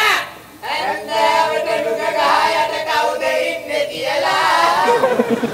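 Several young men singing together in unison on stage, holding long notes, after a short loud burst at the very start.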